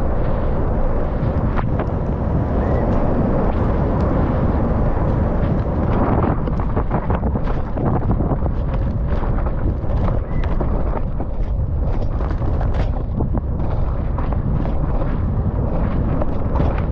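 Downhill mountain bike ridden fast down a wet, muddy track, heard from the rider's helmet: a steady rush of tyres through mud and wind on the microphone, with frequent sharp knocks and rattles from the bike, thicker from about six seconds in.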